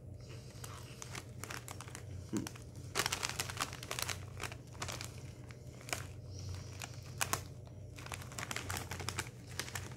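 Foil snack-chip bag (Lay's Wavy) crinkling as it is handled and turned over, with dense crackling about three seconds in and again around seven seconds.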